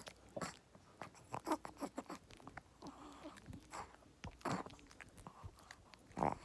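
Pomeranian gnawing a dog chew: irregular crunches, smacks and mouthing sounds of chewing, with a few louder bites.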